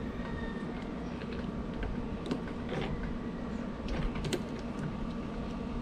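Hands handling and fitting the plastic parts of a backpack sprayer's manual pump lever: scattered small plastic clicks and knocks, a few sharper ones in the middle, over a steady low hum.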